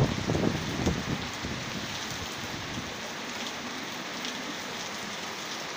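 Heavy rain pouring steadily, an even hiss of downpour. A few low bumps in the first second, then the rain alone.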